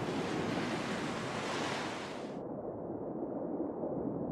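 Steady rushing noise with no distinct events; about two and a half seconds in its hiss abruptly loses its upper range and goes duller.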